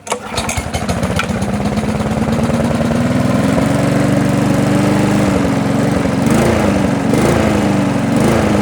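Small 2 HP Briggs & Stratton lawn mower engine running just after being started, its note climbing to speed over the first few seconds and then holding steady, with a few brief dips and rises in speed near the end.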